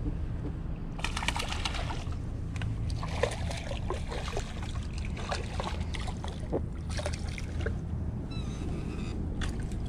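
Water splashing and sloshing as a released sea robin hits the surface below a dock and thrashes, with the loudest burst about a second in and scattered smaller splashes after. A steady low rumble runs underneath.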